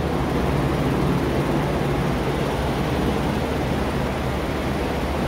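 Steady mechanical drone with a rushing-air sound and a low hum, from shop equipment running in the paint shop.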